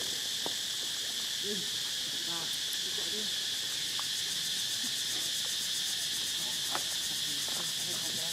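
Steady insect chorus outdoors, a continuous high-pitched buzzing. A few faint, short, wavering calls sound now and then underneath it.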